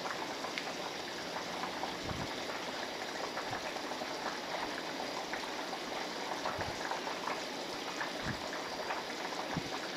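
Pot of vegetable soup boiling on the stove, a steady bubbling.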